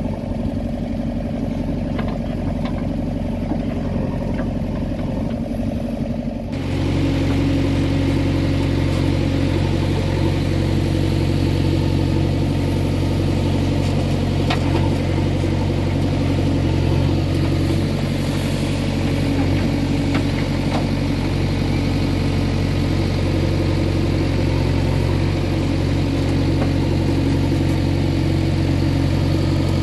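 JCB 3DX backhoe loader's diesel engine running steadily while the backhoe arm swings loads of mud. About six and a half seconds in, it becomes louder and fuller.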